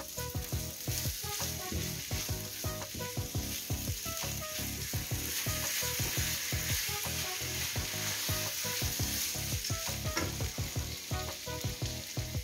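Rice, chicken and fish pieces sizzling as they fry in oil in a pan, the rice toasting before water is added. They are stirred now and then with a wooden spatula.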